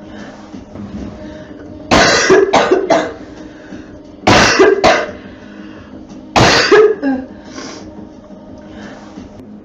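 A girl coughing in three fits: three coughs about two seconds in, then two more, then two more.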